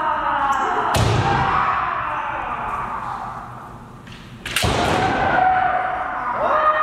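Bamboo shinai strikes on kendo armour with stamping steps on a wooden floor, two sharp hits about three and a half seconds apart, amid kiai shouts that echo in a large hall.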